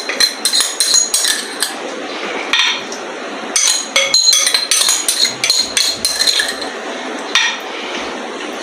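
A spoon clinking and scraping against a glass bowl as yogurt is scraped out of it, in short runs of light taps with quieter stretches between.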